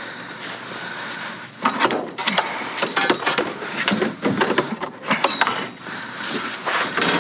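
Hard objects clattering and knocking as the contents of a dumpster are rummaged through, with a quick run of sharp knocks and clinks starting about a second and a half in.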